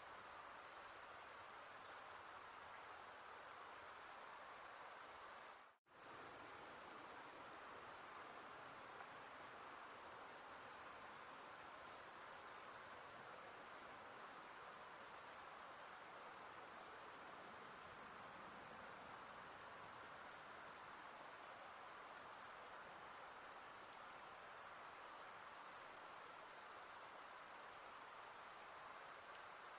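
A steady, shrill chorus of insects chirring in a forest, with a faint hiss beneath it. The whole sound drops out for a split second about six seconds in, then carries on unchanged.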